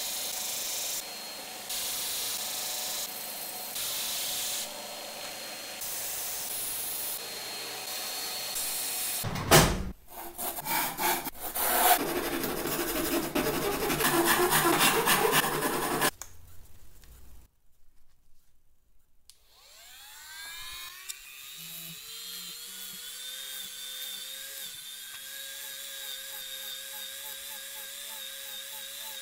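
A bench disc sander running while the edge of a copper-clad circuit board is ground against it. About nine seconds in comes a sharp knock, then several seconds of irregular, louder scraping as the board is cut by hand to size. After a short pause a handheld rotary tool spins up with a rising whine and settles into a steady whine while drilling small via holes in the board.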